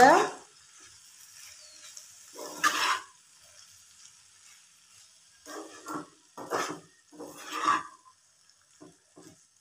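A spatula stirring cooked rice through a frying pan: a few short scraping strokes with pauses between, the first a couple of seconds in and a run of three or four more in the second half, then a couple of light taps near the end, over a faint steady hiss.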